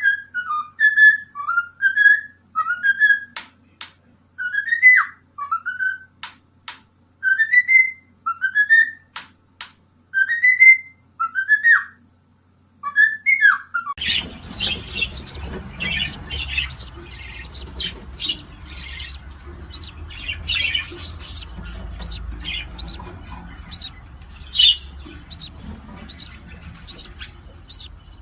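A parrot whistles the same rising note over and over, about once a second, with sharp clicks between the whistles. About halfway through, this gives way to short squawks and chirps over a noisier background.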